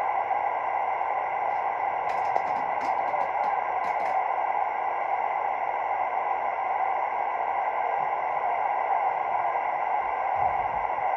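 Steady static hiss from a CB radio receiver with no transmission coming through: a band of noise with faint steady tones in it. A quick run of sharp clicks comes about two to four seconds in.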